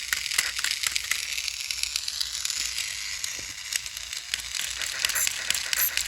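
Battery-powered toy Thomas engine running and making its sounds: a steady hiss with rapid, irregular clicking and crackling. The toy has a broken axle gear.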